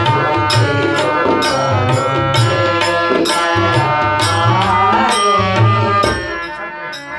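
Devotional bhajan music: a harmonium playing held chords under men's singing voices, with steady hand-drum and percussion strokes. About six seconds in the drumming stops and the music drops in loudness.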